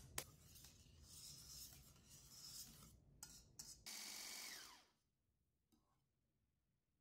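Soft rubbing and scraping with a few light clicks, then an electric hand mixer whipping egg whites in a steel bowl runs for about a second and winds down, its pitch falling as it stops.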